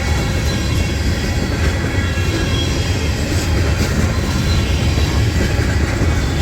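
Freight train rolling past at close range: a steady, loud rumble of wheels on the rails.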